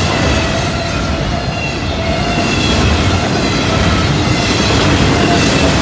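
Double-stack intermodal freight train's loaded well cars rolling past at speed: a steady, loud rumble of steel wheels on the rails.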